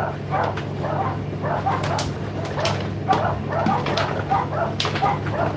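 Indesit IDC8T3 condenser tumble dryer running mid-cycle: a steady low motor and drum hum under a quick, irregular run of short higher-pitched squeaks and sharp clicks from the turning drum and tumbling load.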